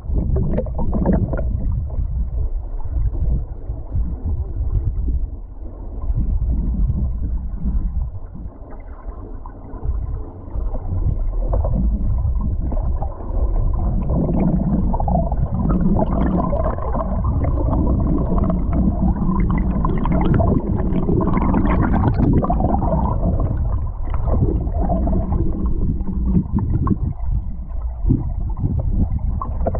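River water rushing over stones, heard from a camera submerged in the current: a muffled, low gurgling rumble that swells and dips, quieter for a few seconds about a third of the way in.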